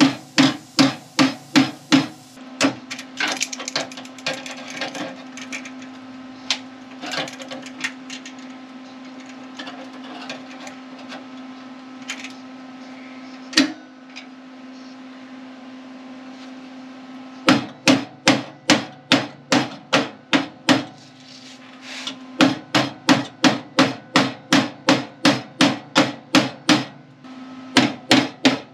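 Hammer striking the sheet-steel seam of a Ford Mustang's inner fender apron, shaping the clamped flange for welding. The blows come in quick runs of about four a second, with a long middle stretch of only occasional lighter taps and one single hard blow.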